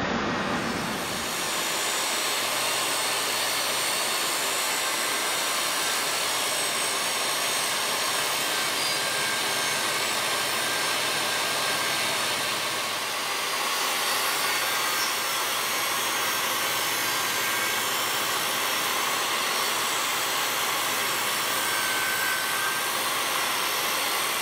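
Table saw running steadily, its blade cutting an oak tenon as the workpiece is fed past in a tenoning jig.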